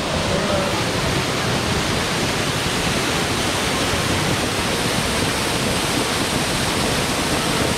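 Waterfall pouring down a rock cliff and splashing onto the stones at its foot: a loud, steady rush of water.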